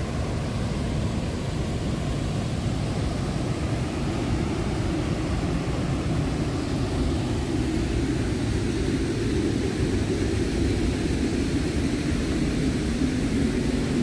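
Steady roar of a broad, low river waterfall and the fast current below it: a dense rushing noise, heaviest in the low range, a little louder in the second half.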